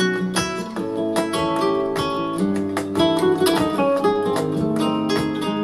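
Instrumental music of plucked strings, a quick run of sharply struck notes, playing back from a Kenwood DP-520 CD player.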